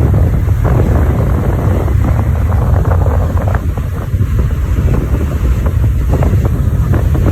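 Loud wind buffeting the microphone: a steady low rumble with scattered crackles.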